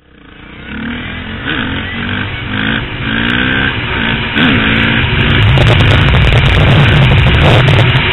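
Dirt bike engine revving hard under acceleration, its pitch climbing and dropping again and again as it shifts up through the gears, then running loud and steady near the end.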